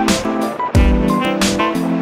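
Background music with plucked, guitar-like notes over a deep bass beat that comes about once a second.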